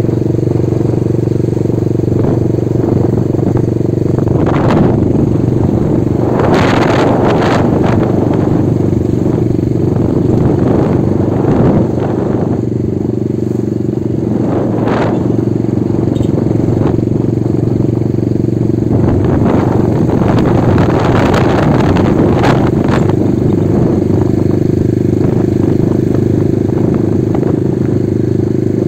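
Small motorcycle engine running steadily while riding along, with road and wind noise rushing louder several times.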